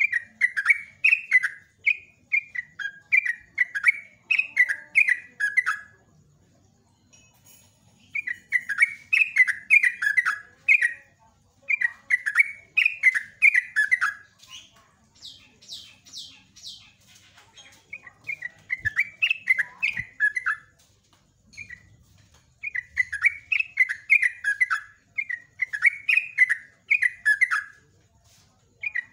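Yellow-vented bulbul (trucuk) singing: long runs of quick, short notes that each fall in pitch, strung into phrases of several seconds with brief pauses between them.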